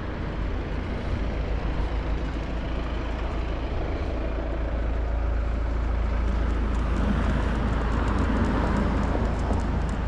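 Road traffic: a vehicle passing, growing louder from about four seconds in and easing off near the end, over a steady low rumble.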